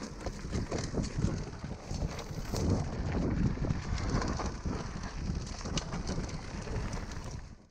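Wind buffeting the microphone of a camera on a mountain bike riding down a dirt trail, over a low rumble of tyres on loose ground and scattered small clicks and rattles from the bike. It cuts off suddenly near the end.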